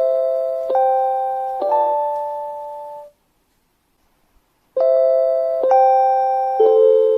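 JR Hokkaido station guidance chime for visually impaired passengers, playing its short phrase of electronic bell-like notes, a new note about every second, each ringing on and fading. The phrase ends about three seconds in, and after a pause of about a second and a half the chime starts over.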